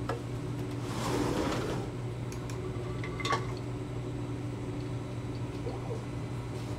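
Steady low room hum in a chemistry lab, with a short rush of noise about a second in and a single light knock a little after three seconds as a glass beaker of liquid is set down on a hot plate stirrer.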